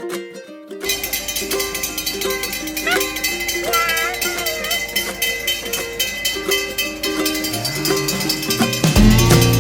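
Background music: a light, plucked-string pop tune that turns fuller about a second in, with a bass line entering near the end.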